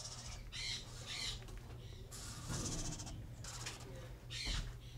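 Eastern screech owl nestlings giving raspy, hissing calls, a series of short hisses about a second apart.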